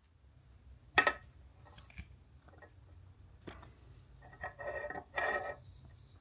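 Hard objects being handled: a sharp knock about a second in, a couple of light clicks, then a stretch of scraping and rubbing near the end.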